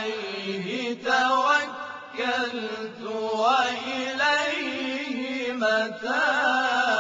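Male vocal group chanting Quranic recitation in chorus, voices blended in harmony. It runs as several short melismatic phrases with ornamented upward turns, then a long held note near the end.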